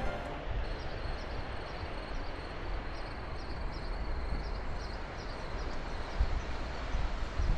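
Steady rain falling, an even hiss with a low rumble underneath, and a few faint high chirps recurring over it.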